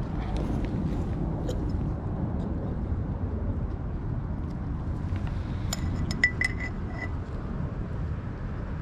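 A few quick metallic clicks with a light ring, from small scissors being worked, about six seconds in, over a steady low rumble.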